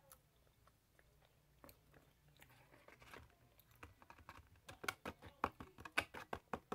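Chewing on crunchy breaded fried chicken strips close to the microphone. It is faint at first, then turns into a quick run of sharp crunches, about four a second, over the last two seconds.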